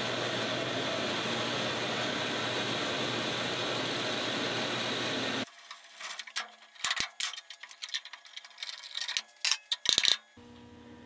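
A drill press runs a hole saw through a thick block of ipe hardwood with a steady cutting noise, which stops abruptly about five seconds in. Scattered clicks and knocks follow as the bored wooden block is handled and lifted off the hole saw.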